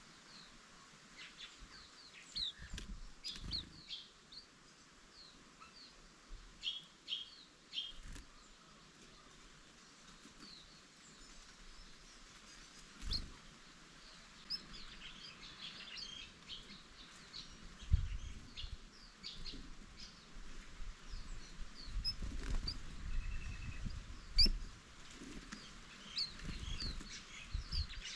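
Green-backed white-eyes chirping: many short, high calls scattered throughout, with occasional low thumps, the loudest near the middle and again later on.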